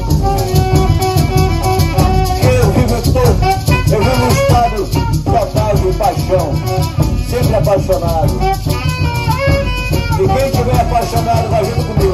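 Live carimbó band playing: a steady beat on curimbó hand drums with maracas shaking, acoustic guitar and a melody line over the top.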